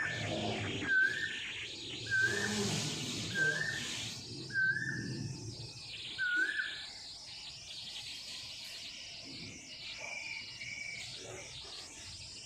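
Asian koel calling: a short rising "ku-oo" note repeated six times about a second apart, stopping about six seconds in, with fainter chirps of other birds afterwards.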